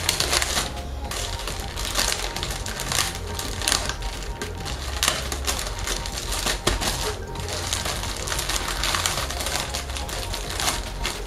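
Plastic wrapper of a pack of mini pound cakes being pulled and torn open by hand, a long irregular run of crinkles and crackles.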